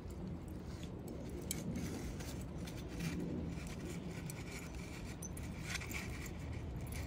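Paper rustling and lump charcoal clinking and scraping as a paper bag is tucked in among the coals of a charcoal grill to light it: scattered light clicks and scrapes over a steady low background rumble.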